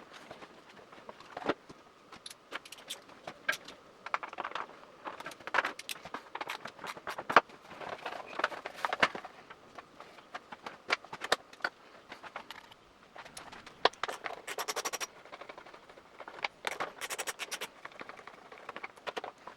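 Workshop handling noise while a motorcycle's front fairing is dismantled: scattered clicks, knocks, rattles and scrapes of hand tools, fasteners and plastic panels. Two short runs of rapid, even clicking come in the second half.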